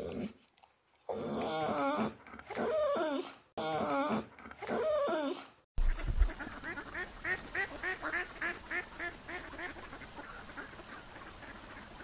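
Siberian husky making drawn-out, wavering, talking-like vocal calls in four long stretches. These stop abruptly and give way to a flock of Egyptian geese calling in rapid, repeated short honks, several a second.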